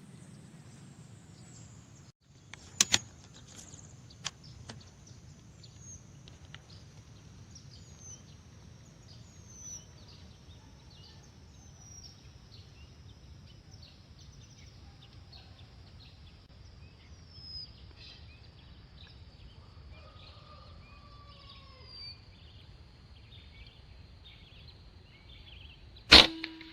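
Small birds chirping repeatedly in the trees, with a few quiet clicks a few seconds in. Near the end comes one sharp, loud air-rifle shot.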